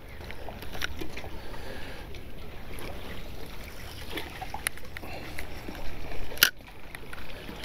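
Water lapping below the pier with wind noise, and small clicks from handling a spinning rod and reel; one sharp click about six and a half seconds in.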